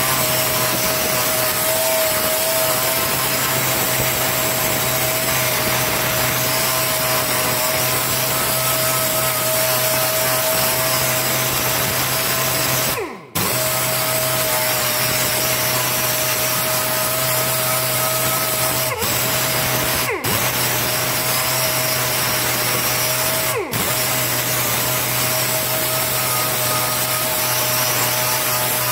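Air-powered dual-action polisher with a small pad running, buffing metal polish into an aluminum wheel: a steady pitched whine over a hiss. About halfway through it winds down and stops for a moment before starting again, and it dips briefly three more times near the end.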